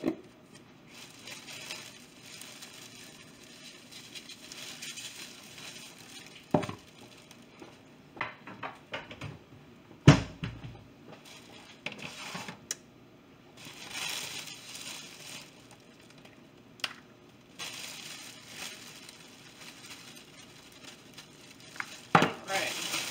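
Plastic oven roasting bag crinkling as it is handled around a turkey, in several stretches, with a few sharp knocks on the counter, the loudest about ten seconds in.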